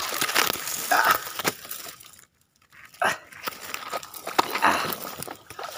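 Dry grass, twigs and branches rustling and crackling as a person pushes through brush, with a few heavy breaths. There is a short pause just past two seconds in.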